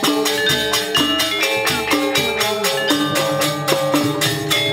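Sasak gamelan ensemble playing: bronze saron metallophones struck with wooden mallets in fast, even strokes, their ringing tones overlapping.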